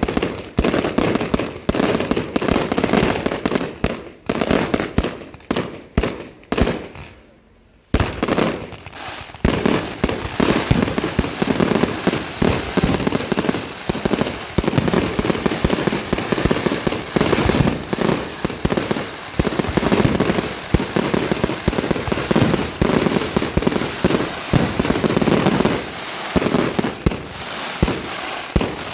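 Fireworks going off in a dense, rapid barrage of bangs and crackles. The barrage thins to a brief lull about seven seconds in, then resumes as a near-continuous volley.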